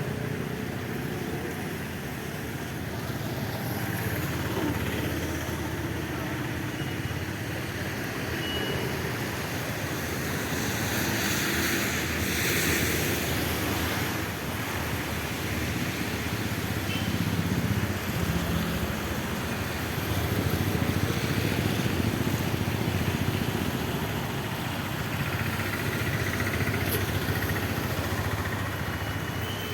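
Road traffic: motor vehicles running and passing, a steady mix of engine noise, with one louder pass about halfway through.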